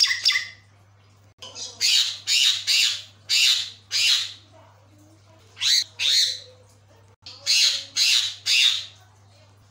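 Caged Javan myna calling loudly in three runs of harsh, squawking notes: about five, then two, then four, with short pauses between the runs.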